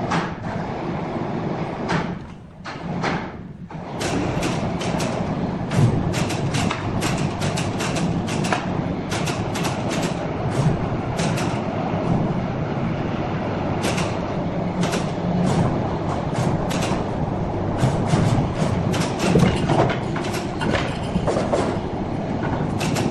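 Sawmill log carriage rolling along its steel rails under a large log: a steady rumble with frequent sharp clacks and knocks, dipping briefly about two seconds in.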